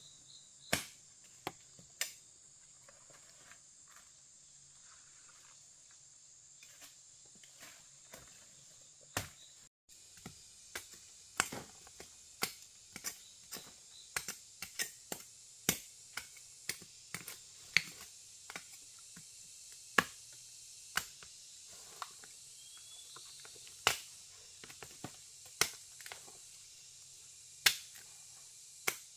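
Sharp snaps and cracks at irregular intervals, roughly one a second and coming faster in the second half, over a steady high-pitched drone of forest insects.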